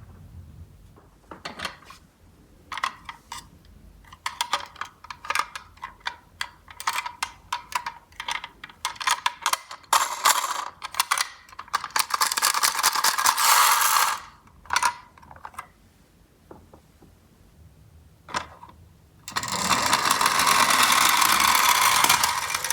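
Miniature toy cars clattering against each other and a hard surface. Separate clicks and knocks come first, then a dense rattle about twelve seconds in, and another steady rattle through the last three seconds.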